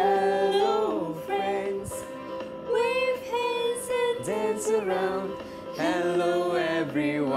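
A song with backing music, a singing voice holding long notes that slide up and down between pitches.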